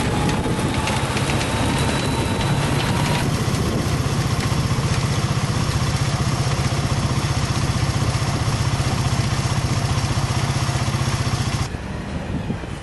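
Peat harvesting machine at work: its engine runs steadily with a fast even pulse. A thin high whine sounds over it for the first three seconds. The sound changes abruptly about three seconds in and drops to a quieter, different texture near the end.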